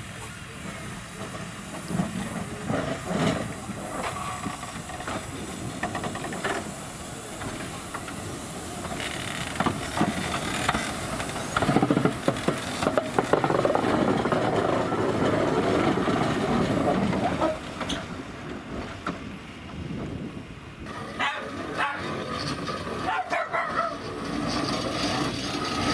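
Narrow-gauge steam locomotive No. 762 Lyn, a replica of the Lynton & Barnstaple's Baldwin 2-4-2 tank engine, hissing steam and working as it passes close by and pulls away. It is loudest around the middle as the engine goes past.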